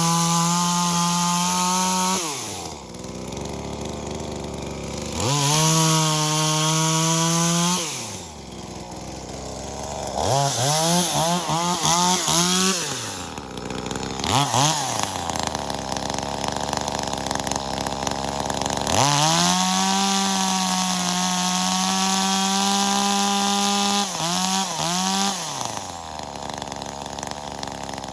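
Small two-stroke top-handle chainsaw (V-Modest 2511T, an Echo 2511T clone) taken up to high revs about half a dozen times and dropping back to a low idle in between. Most runs at speed last two to three seconds, with quick throttle blips around the middle and near the end, and one steady run of about five seconds in the second half.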